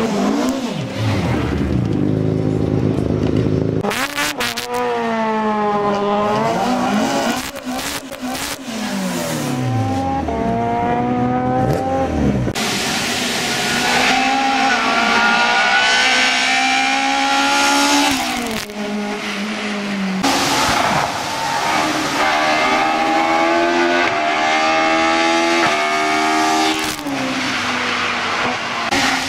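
Hillclimb race cars at full throttle, one after another, climbing the course. Each engine's pitch rises through a gear and drops sharply at every upshift, and the cars pass and fade away.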